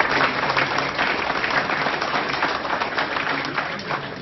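Audience applauding, easing off toward the end.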